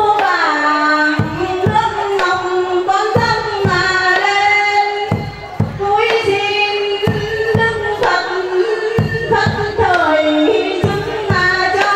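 A woman singing a devotional chant into a microphone, long held notes sliding slowly in pitch, over a steady percussion beat.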